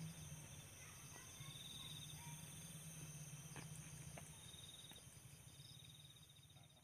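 Faint night insects: crickets trilling in short bursts over a steady high-pitched insect whine and a low hum, with a couple of soft clicks, fading out near the end.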